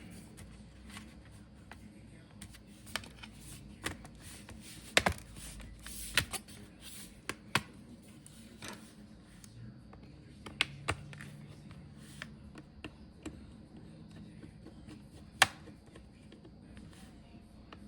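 Irregular sharp clicks and taps as the bottom cover of a Dell Inspiron laptop is handled and fitted back on, with a couple of louder clicks about five seconds in and again later.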